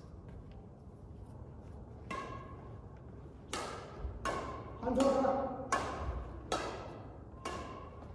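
Badminton rackets striking a shuttlecock in a rally: a sharp ping every second or less from about two seconds in, each echoing in a large hall.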